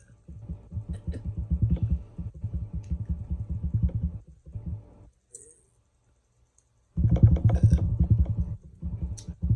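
A person belching after drinking carbonated Pepsi: a long, rough, low burp lasting about four seconds, a short one, a pause, then two more burps near the end.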